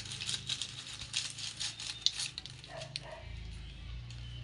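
Light, irregular clicking and rattling with a little crinkling, as dry seasonings are handled and dropped into the pot.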